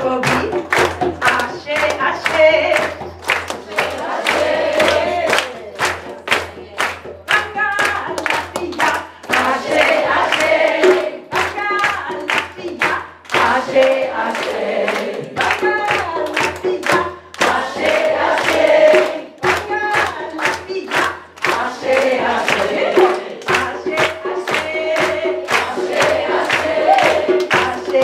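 A room full of people singing a welcome song together with the musicians, clapping steadily on the beat.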